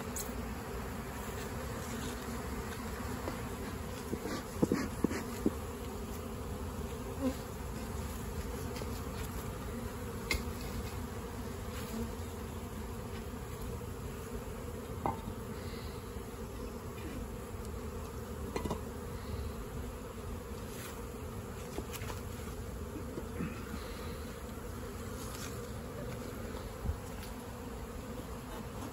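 A swarm of honey bees buzzing steadily around a wooden nuc box as the shaken swarm settles at its entrance. A few brief knocks sound about four to five seconds in.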